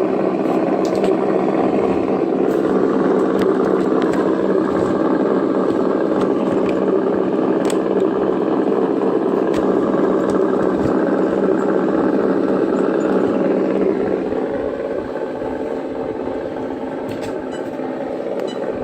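Sense ESS-ONE engine sound module in an RC truck playing a simulated engine through its speaker, following gentle throttle. It runs steadily and fairly loud, then drops back a little about fourteen seconds in.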